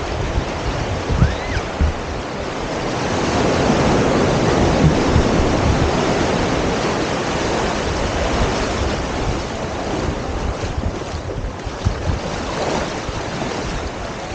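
Ocean surf washing onto a sandy beach, a steady rush that swells as a wave comes in a few seconds in and then eases off, with wind buffeting the microphone in low rumbles.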